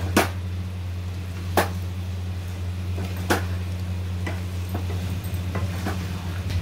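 A spatula stirs potato-and-aubergine sabzi in a non-stick kadhai. It knocks sharply against the pan three times, about a second and a half apart, followed by softer taps and scrapes, over a steady low hum.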